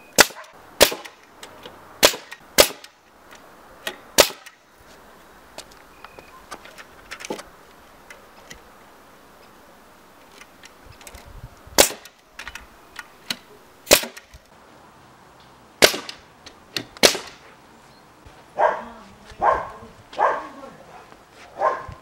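Pneumatic framing nailer driving nails into a timber wall frame: sharp shots, five close together in the first few seconds and four more spread out later. Near the end, a dog barks repeatedly.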